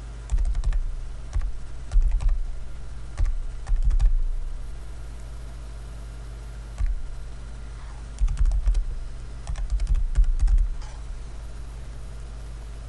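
Computer keyboard typing in quick bursts of keystrokes, several in the first four seconds, then a pause, then more from about seven to eleven seconds in, each key landing with a dull thud. A steady low hum runs underneath.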